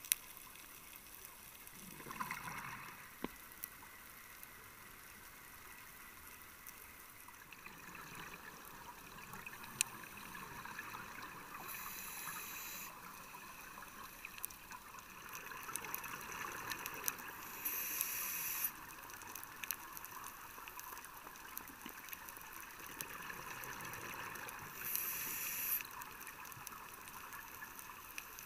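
Underwater ambient sound on a scuba dive: a steady low hiss with scattered faint clicks, and three short bursts of hissing from a scuba regulator, about six to seven seconds apart, as the diver breathes.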